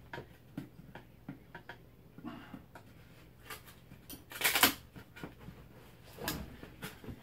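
Screwdriver prying at the end of a wooden packing box: scattered light clicks and scrapes of metal on wood, then a louder scraping creak of the wood about four and a half seconds in and a shorter one near six seconds.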